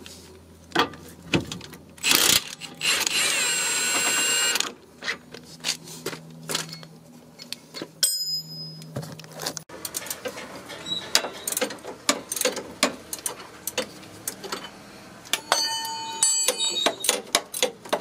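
Hand tools working suspension bolts under a car's front end: irregular metallic clicks and clinks of a wrench on a tight bolt, with a brief high squeal about three seconds in and a quick run of ringing clicks near the end.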